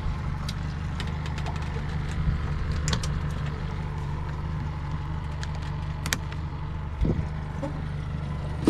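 A boat engine idling with a steady low hum, with a few light clicks and knocks over it.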